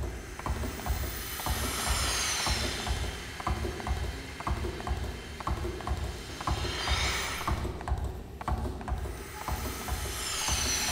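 Milking machine running in a rhythmic beat: even clicks, about three a second, over a low pulsing throb, with a hiss of air that swells up twice.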